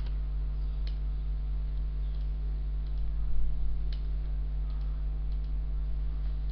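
Steady low electrical hum on the microphone, with a few scattered sharp clicks, about four of them.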